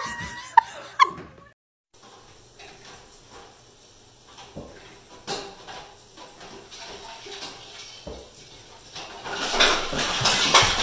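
A white artificial Christmas tree crashing over onto a tile floor about nine seconds in, knocked down by a cat, its branches and ornaments clattering loudly for a couple of seconds. Before that, a brief burst of excited voices, then a quiet stretch with faint scattered clicks.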